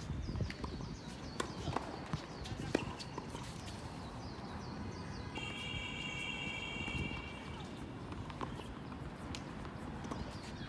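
Irregular sharp clicks of a doubles rally: racket strikes and quick footwork on a court. About halfway through, a steady high squeal lasts about two seconds.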